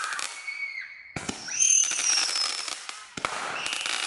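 Fireworks going off: dense, rapid crackling pops, with fresh bursts starting about a second in and again about three seconds in. High whistles glide downward in pitch over the crackle.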